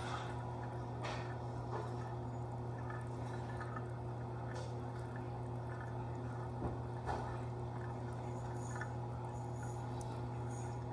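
Reef aquarium water trickling and dripping over a steady low hum, with a few scattered drips or ticks.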